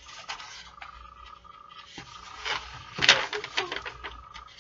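Pages of a picture book being turned and handled: paper rustling and flapping with small knocks, loudest in a flurry about three seconds in.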